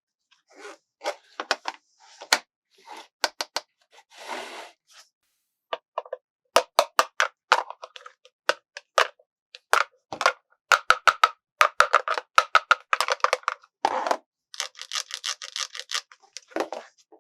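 Hands tapping and handling a plastic toy car and its packaging: a run of sharp taps and clicks, with a short scratchy rustle about four seconds in and a dense stretch of quick scratchy tapping near the end.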